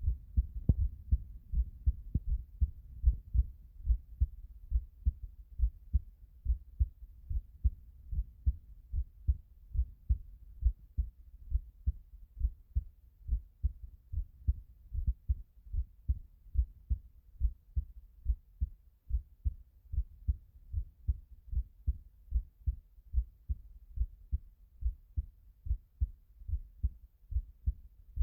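Heartbeat sound effect: a steady, even rhythm of dull, low thumps.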